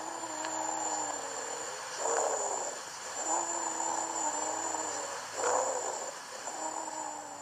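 Lung-auscultation recording of wheezes, the sign of obstructed airways. About three breath cycles, each a short noisy breath followed by a longer one carrying several steady whistling tones at once.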